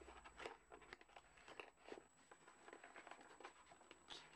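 Faint handling noise: soft rustling and scattered small clicks, with no steady sound beneath.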